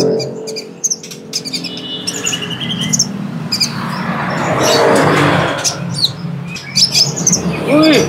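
Male kolibri ninja (Van Hasselt's sunbird) singing in full song: a rapid, jumbled run of high, sharp chirps with a short quick trill about two seconds in. The song is the lively, non-stop 'gacor' singing that sellers prize in this mimic species.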